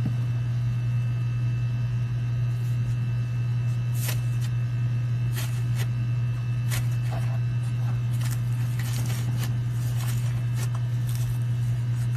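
Slime being squeezed and pressed by hand, giving scattered sharp clicks and crackles from about a third of the way in, over a steady low hum.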